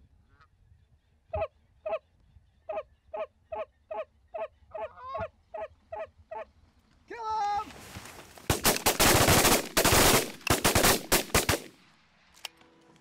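Canada geese honking: a string of short single honks about a third of a second apart, then a louder drawn-out call. Then several shotguns open up at once, a rapid volley of many shots lasting about three seconds.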